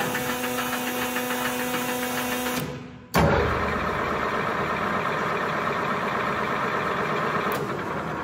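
LeBlond Servo Shift lathe headstock: for the first two and a half seconds the hydraulic speed shift runs with a steady whine and a rattle as it seeks the selected gears. About three seconds in the spindle starts with a sudden jolt, and the chuck then runs steadily through the geared headstock.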